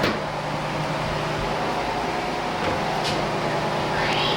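Steady electrical or mechanical hum under a constant hiss, with a click at the start and a short rising squeak near the end.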